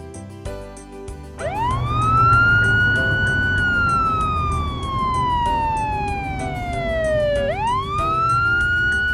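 Police car siren wailing: it rises quickly, falls slowly over about six seconds, then rises again near the end, over background music with a steady beat.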